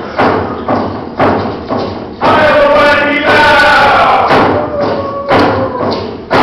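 Drum struck in a steady beat, about two strokes a second, with a group of voices coming in singing together about two seconds in: a Northwest Coast First Nations dance song.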